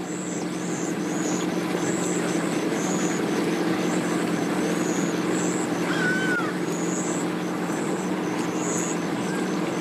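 Outboard boat motor idling steadily, an even low hum.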